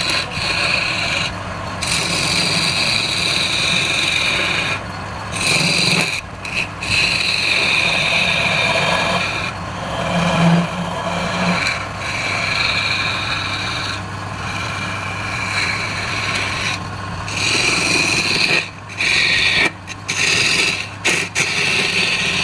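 Wood lathe running with a turning tool scraping and cutting the spinning wood: a steady rasping hiss over the low hum of the motor, broken several times by short gaps where the tool comes off the work.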